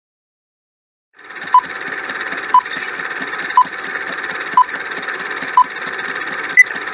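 Quiz countdown-timer sound effect: fast ticking over a steady hiss, starting about a second in, with a sharp beep once a second. The last of the six beeps, near the end, is higher-pitched.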